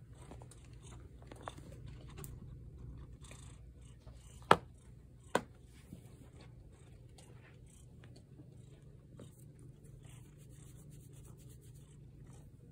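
A domestic cat purring steadily close to the microphone, a continuous low rumble. Two sharp clicks stand out about halfway through.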